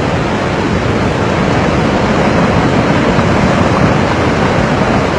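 Flash-flood torrent of muddy water and debris rushing down a mountain stream: a loud, steady rush.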